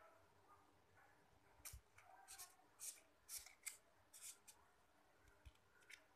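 Faint crisp rustling of a handmade paper flower being handled, a run of about seven short rustles in the middle.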